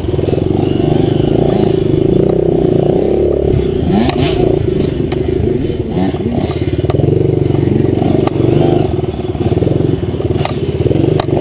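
A 65cc-class two-stroke dirt bike engine running hard on a trail, revs rising and falling with the throttle, heard from the rider's helmet. A few sharp knocks and clatters from the bike over the rough ground cut through, one about four seconds in and two near the end.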